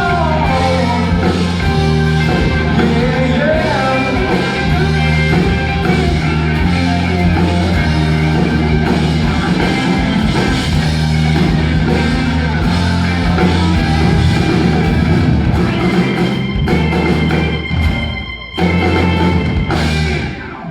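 Live pop-rock band playing the instrumental ending of a song, with drum kit, bass and electric guitar. The music breaks off briefly about 18 seconds in, then a last loud chord rings and dies away near the end.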